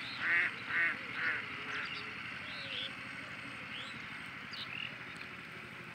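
Birds calling: three loud calls about half a second apart near the start, then scattered short, higher chirps over a steady outdoor background.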